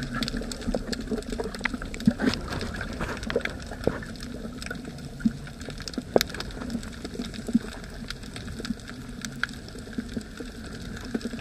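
Underwater sound heard through a submerged camera: a steady muffled wash of water with many scattered sharp clicks and crackles.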